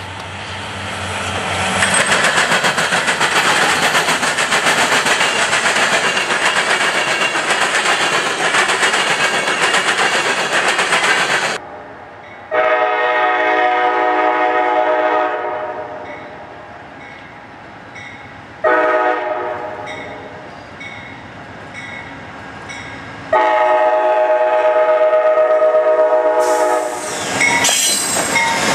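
A CSX freight train led by a pair of diesel locomotives passes close at speed, a loud steady rush of engine and wheel noise that cuts off about twelve seconds in. Then an Amtrak Genesis P42 diesel locomotive sounds its air horn in three blasts, the middle one shorter, as it approaches a grade crossing. Near the end the locomotive passes close with engine and wheel noise.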